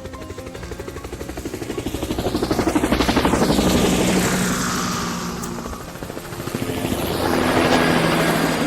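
A machine with a rapid chopping pulse passes by twice, swelling and fading each time, its pitch dropping as it goes past.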